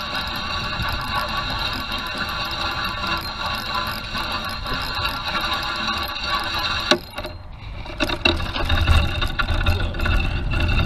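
Fishing reel cranked steadily, a dense whirring gear hum as the lure is retrieved. It stops abruptly about seven seconds in, followed by scattered handling clicks and a low rumble.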